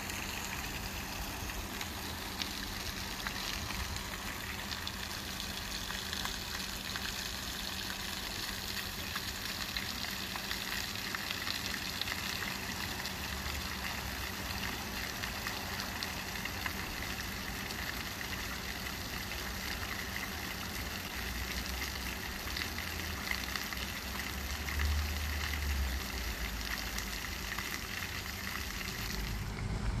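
Steady hiss of running, splashing water, with a few low rumbles of wind on the microphone a little before the end.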